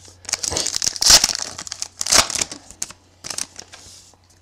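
Foil trading-card pack wrapper being torn open and crinkled by hand, in several crackly bursts, the loudest about one and two seconds in.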